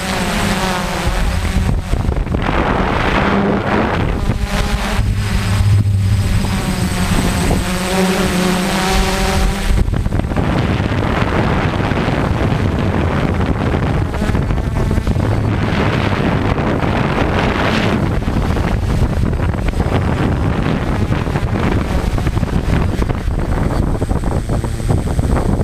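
A quadcopter drone's motors and propellers running in flight, heard from the camera on the drone, with wind buffeting the microphone. Over the first ten seconds the motor whine rises and falls in pitch as the drone manoeuvres; after that it runs steadier.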